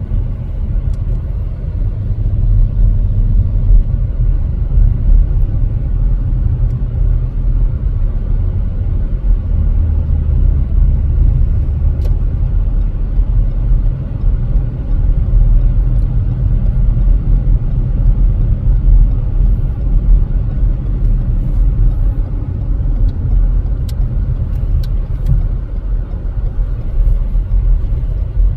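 A car driving with a steady low rumble of engine and tyre noise, heard from inside the cabin.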